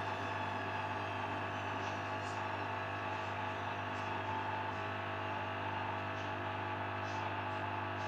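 Hoover Dynamic washing machine in its final spin, the motor and drum giving a steady whine over a low hum. A high whine falls slightly in pitch in the first second, and faint ticks come now and then.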